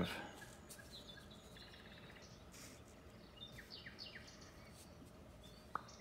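Quiet handling of sleeved trading cards on a cloth playmat, soft sliding and shuffling, with one sharp click near the end as a card is set down. Faint high chirps sound in the background.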